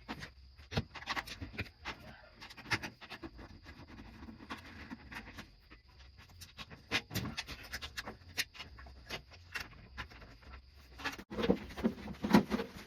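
Scattered light clicks and knocks of hands handling a microwave oven, over a faint steady high tone that stops about eleven seconds in. The knocks grow louder near the end.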